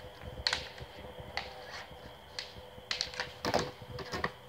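Sparring swords clacking against each other in a fencing exchange: a string of sharp, irregular knocks, coming thicker and louder about three seconds in.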